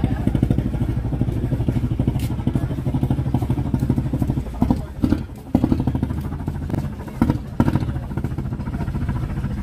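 Small boat engine running steadily at idle, a fast even pulsing. There are a few knocks and a brief drop about five seconds in.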